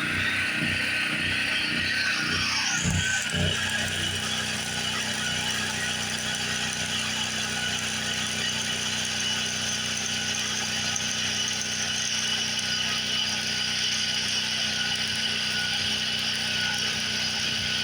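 Arc welding on an exhaust with a small welder run off a 110-volt generator: a steady crackling hiss of the arc over a constant low hum.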